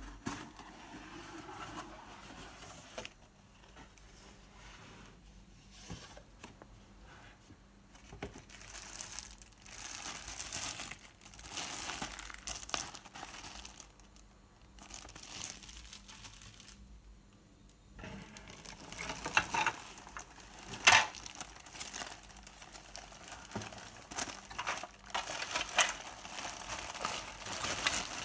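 Clear plastic bags crinkling and rustling in the hands as bagged parts are handled and unwrapped. It comes in bursts with quieter gaps, and there is one sharp knock about three-quarters of the way through.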